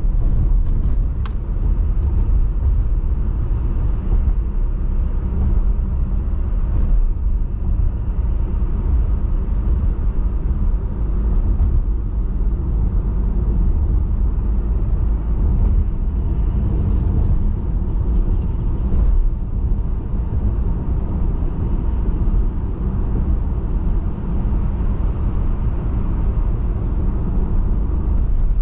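Car driving at highway speed: a steady low rumble of tyres on the road and engine, with no letup.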